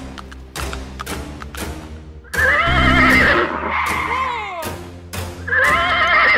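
A horse whinnying: one long trilling neigh of about two seconds, starting about two seconds in and falling away at its end, and a second neigh starting near the end. Background music with a steady beat plays underneath.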